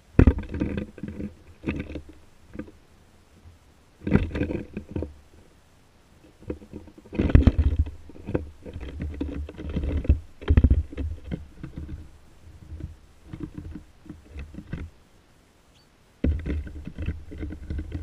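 Fluttering wingbeats of birds, a white dove among them, landing on and taking off from the bird table close to the microphone. They come in several loud bursts with a deep rumble, the longest in the middle and another just before the end.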